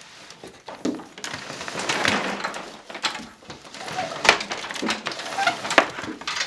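Bundle of plastic-sheathed electrical cables being pulled and untangled by hand, rustling and scraping against each other and the wooden wall, with a few sharp knocks, the loudest two near the end.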